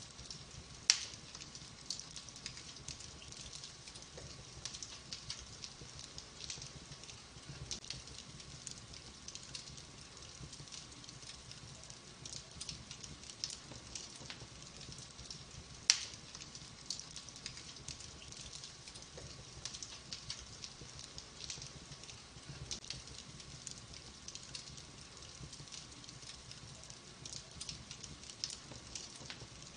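Wood fire crackling in a fireplace: a steady run of small crackles and ticks, with two sharp, louder pops about a second in and again midway.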